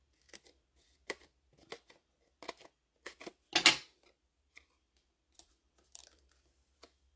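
Small craft scissors snipping through a strip of foam dimensional adhesive, then the light clicks and rustles of handling the pieces and cardstock. The sound is a series of short, sharp snips and clicks with pauses between, the loudest a little past halfway.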